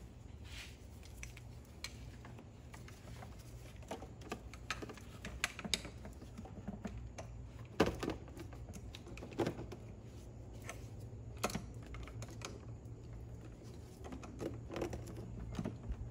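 Irregular metallic clicks and clinks of a socket on a long extension bar being fitted and worked on a hard-to-reach bolt behind a BMW N55 engine's oil filter housing, with a few sharper knocks about halfway through.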